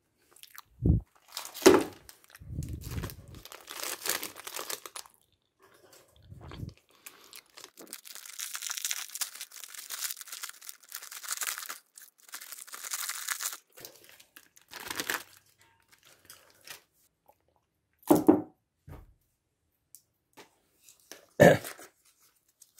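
MRE ration packaging being handled: plastic and foil pouches crinkling and tearing, with a long stretch of crinkling in the middle and a few sharp knocks near the start and near the end.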